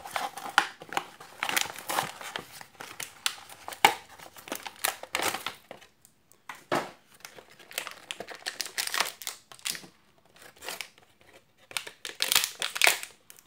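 Clear plastic blister packaging of a toy multipack crinkling and crackling as it is handled and pulled apart by hand. The sound comes in irregular crackles, with quieter stretches about six and ten seconds in.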